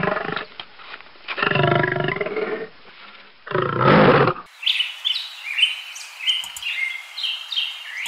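Lion roaring: three loud deep calls about two seconds apart, the first ending just after the start. About four and a half seconds in it gives way to a songbird's rapid short high chirps.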